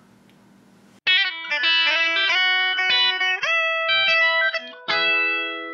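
Short guitar sting: after about a second of faint room hum, a quick run of plucked notes plays, one sliding up partway through, ending on a chord that rings out and fades.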